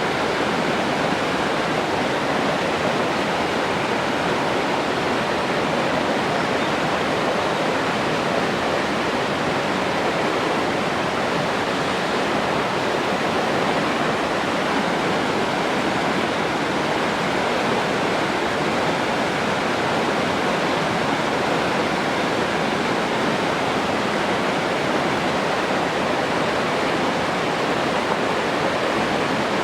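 Water rushing steadily, an even, unbroken hiss with no waves or breaks in it.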